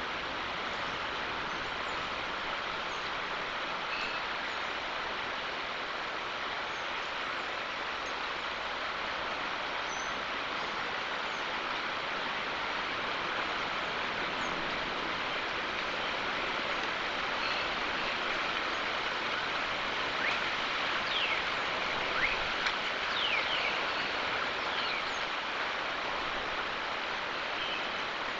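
Steady outdoor ambient hiss with scattered faint bird chirps, and a cluster of short gliding chirps about twenty seconds in. No volcanic rumble is heard.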